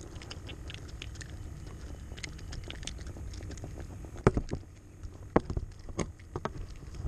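Handling noise on a body-worn camera: a sleeve brushing over the microphone as a low rumble, with several sharp knocks in the second half as the arm bumps the camera.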